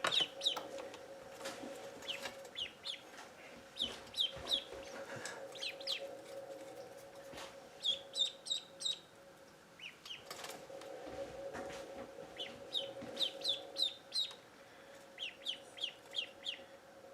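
Two three-day-old ducklings, a White Layer hybrid and a Golden 300, peeping in runs of short, high chirps with pauses between, over a steady low hum and a few light taps.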